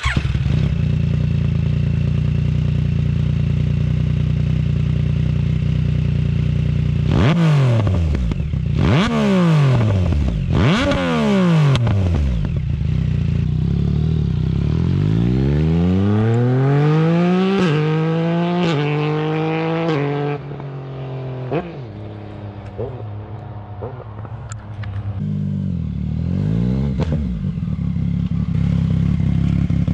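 Yamaha MT-09's three-cylinder engine through a Roadsitalia Double Fire titanium full exhaust system, with the dB killer removed and the catalytic converter in place. It idles steadily, then gives four quick revs. It then accelerates away, the pitch dropping sharply at each of three upshifts, and fades before it comes back near the end.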